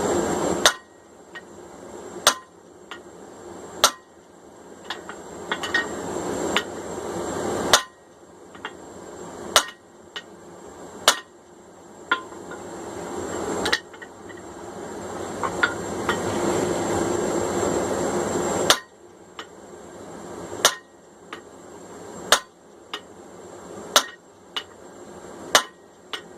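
Blacksmith's hand hammer striking a fuller set into hot steel, driving fullers into the cheeks of a forged hammer head. The sharp, ringing blows come about every second and a half, with lighter taps between some of them. The strikes pause for several seconds about halfway through, under a steady background rush.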